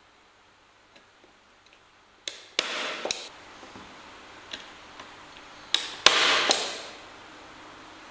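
Manual staple gun fired twice, about three seconds apart, each time a few sharp clacks close together with a short rattle.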